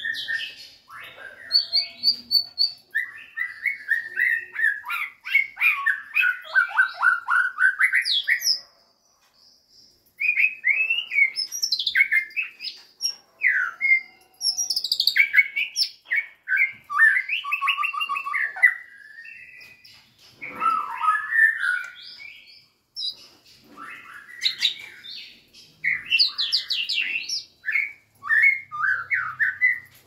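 White-rumped shama singing: long runs of rapid, varied whistled and chattering notes that slide up and down in pitch, with a short pause about nine seconds in and briefer breaks between later phrases.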